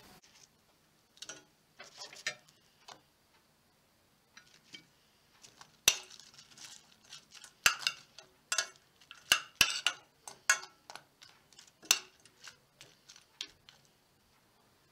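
Metal spoon clinking and scraping against a small stainless steel saucepan while turning tempura pieces in tentsuyu sauce: irregular sharp taps, loudest and most frequent in the middle.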